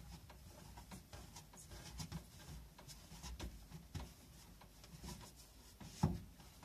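Hands rolling and rounding bread dough on a wooden board: soft rubbing and light taps against the wood, with one louder thump about six seconds in.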